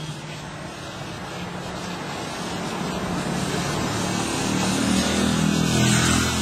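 1972 Dodge Charger SE driving toward the listener. Its engine note and tyre noise grow steadily louder to a peak near the end.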